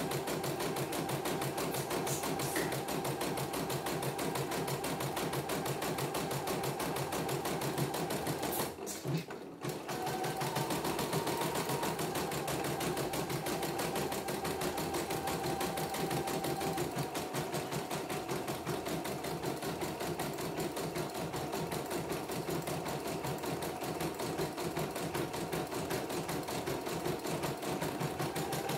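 CNY computerized embroidery machine stitching a design at speed during a test run after servicing, a rapid, even needle clatter. It stops for about a second roughly nine seconds in, then carries on stitching.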